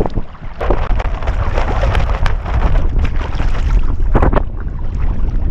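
Gusty wind buffeting the microphone with a heavy low rumble, while choppy lake water splashes and slaps against a sea kayak sailing close to the wind, with a few sharper splashes.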